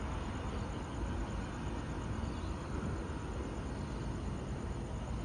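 Steady low outdoor background rumble with no distinct event standing out.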